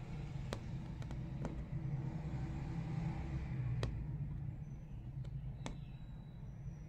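Steady low background rumble with a handful of sharp, separate clicks.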